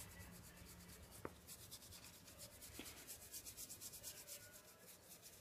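Faint scratchy rubbing of a paintbrush worked quickly back and forth over a small scale-model barn panel, in fast even strokes, with a couple of light ticks.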